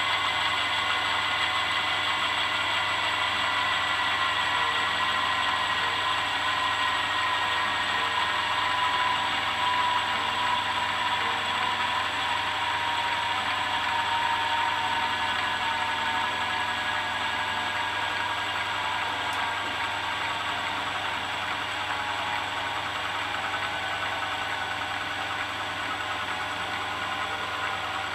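Dynamic balancing machine spinning a Ducati M900 flywheel to measure its imbalance: a steady mechanical whir whose tones slowly fall in pitch while it gradually grows a little quieter.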